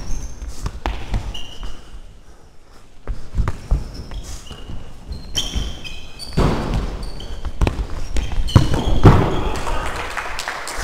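Indoor football being played on a sports hall floor: sneakers squeak in short high chirps, feet pound and the ball is kicked and bounces with sharp thuds. The loudest thuds come about two-thirds of the way through and again near the end.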